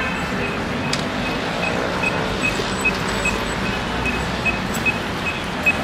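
Pedestrian crossing signal beeping steadily at a high pitch, about two and a half beeps a second, over the hum of city traffic.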